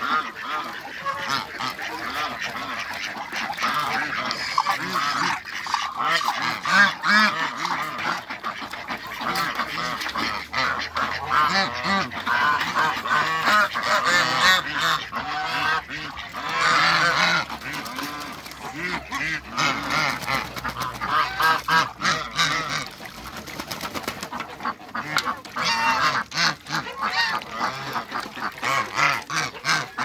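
A flock of domestic geese honking continuously and overlapping, with ducks quacking among them, while the birds crowd round a metal basin of water and splash their bills in it with short knocks and dabbling.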